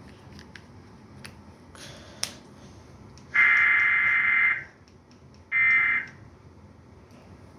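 Emergency Alert System SAME header data bursts: two loud, harsh, buzzing screeches of digital tones. The first lasts over a second and the second, shorter one comes just under a second later. These data bursts mark the start of an emergency alert broadcast.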